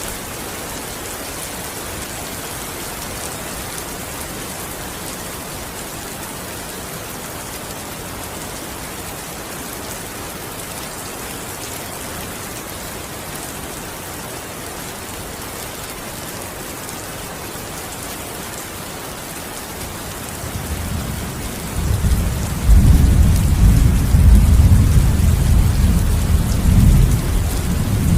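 Heavy rain falling steadily. About twenty seconds in, a long low rumble of thunder builds up, loudest near the end, then starts to fade.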